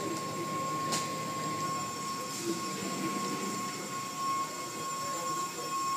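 Automatic car wash running: spinning cloth brushes and water spray working over a car, a steady mechanical rumble with a constant high whine.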